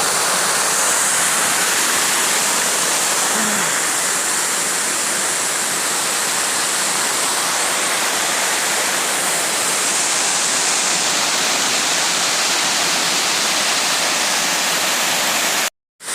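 Steady rushing roar of the Spread Eagle Falls waterfall, cutting out for a moment near the end.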